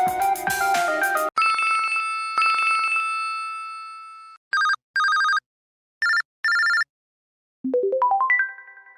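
LG Fathom phone ringtones played one after another: a melodic tune that cuts off about a second in, two chime notes left ringing, two pairs of short electronic telephone-style trills, then a quick rising arpeggio near the end.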